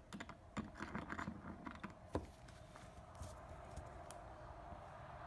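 Irregular small clicks and knocks of hand work on a plastic bumper cover, the sharpest just after two seconds. About two and a half seconds in, a steady hum sets in and continues.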